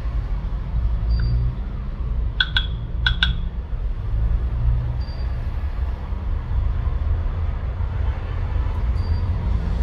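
A steady low rumble, with two short high beeps about two and a half and three seconds in.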